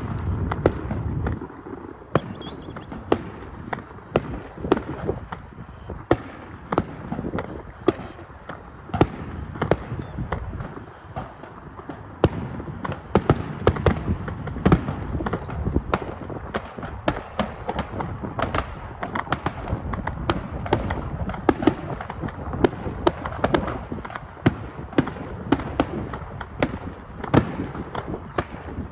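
Aerial fireworks display: many sharp bangs and crackling reports in quick, irregular succession.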